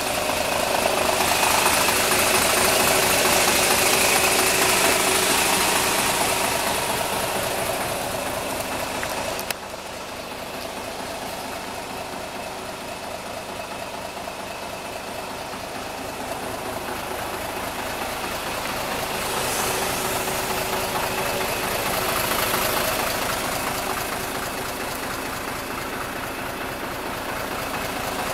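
Mitsubishi Fuso Fighter's 6D16 turbocharged inline-six diesel idling steadily. It drops suddenly in level about a third of the way through.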